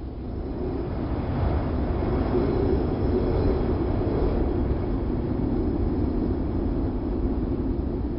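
Wind sound effect: a steady, rushing blow that swells and eases gently, deep and full in the low end.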